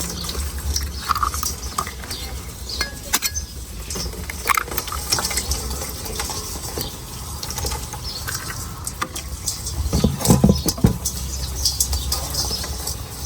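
Scattered light clicks and taps of cooking utensils against pots and pans, with a louder cluster of knocks about ten seconds in.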